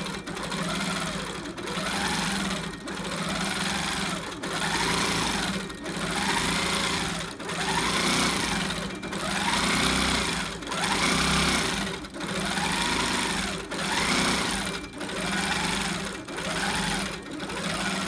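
Longarm quilting machine stitching in free motion, its motor speeding up and slowing down about every second and a quarter as each back-and-forth line of quilting is sewn, with the stitch regulator matching stitch speed to the movement.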